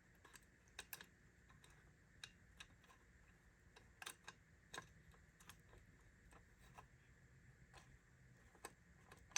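Faint, scattered clicks and taps of small parts of a disassembled Ford Model T ignition switch being handled, irregular and a second or so apart, over a low steady hum.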